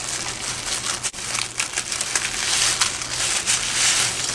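Packaging wrap being crinkled and pulled off, a dense run of irregular crackling and rustling as it is unwrapped layer by layer.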